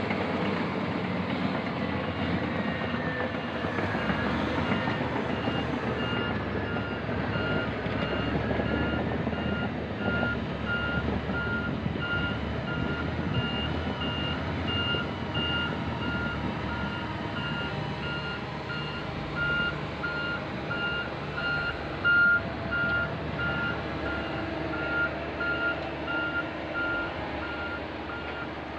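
Heavy earthmoving machine's diesel engine running under load, with its reversing alarm starting about six seconds in and beeping steadily, about two beeps a second, as it backs up.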